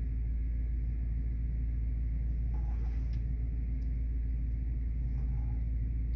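Car engine running at low speed, a steady low rumble heard from inside the cabin.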